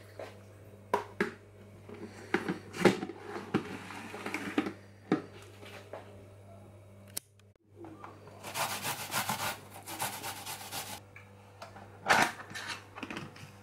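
Kitchen handling sounds: clicks and knocks as a clear plastic food cover is put over a bowl of meat. After a short break, rapid rasping strokes as fresh ginger is rubbed over a fine metal grater, with one sharp stroke near the end.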